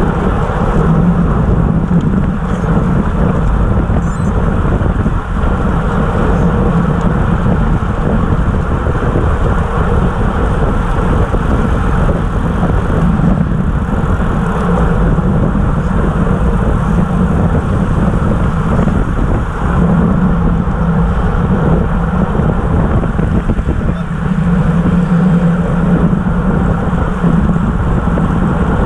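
Steady, loud wind rush over a bike-mounted camera's microphone at race speed, about 25 mph, mixed with tyre and road noise from a pack of road bikes.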